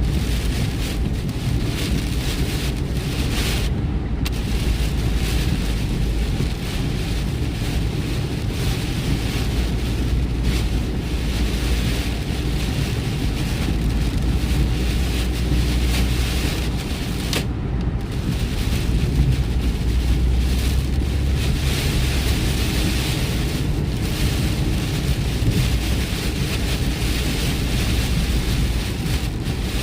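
Vehicle travelling on a rain-soaked highway: a steady low road rumble under an even hiss of tyres and spray on wet pavement. The hiss briefly drops out twice.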